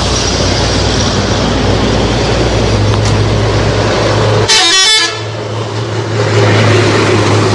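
Bus running close by, with loud engine and road noise and a steady low hum. A little past halfway, a multi-tone telolet horn sounds briefly, about half a second.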